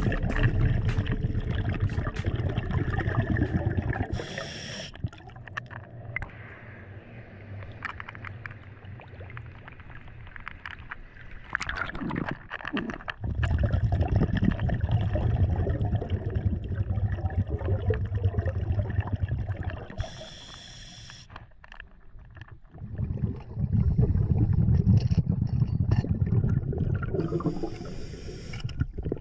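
A diver breathing through a scuba regulator underwater, heard from the diver's own mask: three long stretches of bubbling exhalation, each followed by a short, sharp hiss of the regulator, with quieter pauses in between.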